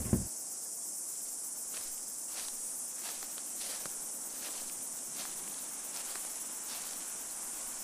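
Crickets chirping in a steady high-pitched chorus, with a few faint ticks scattered through.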